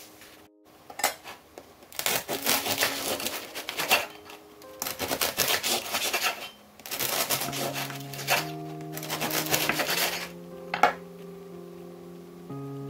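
A bread knife sawing through a crisp-crusted baguette on a wooden board, four bouts of crackling cuts. Soft background music plays underneath.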